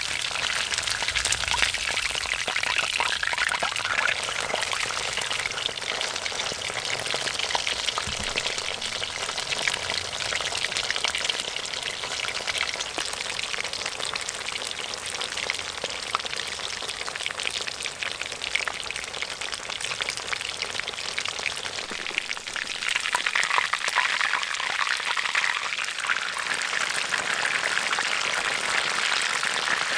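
Chicken pieces deep-frying in hot oil in an iron wok over a campfire: a steady, dense sizzling crackle that grows brighter about three quarters of the way through.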